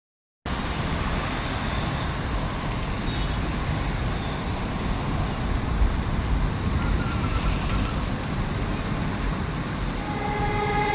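Steady road traffic noise, a continuous rumbling wash of passing vehicles. A few held musical tones fade in near the end.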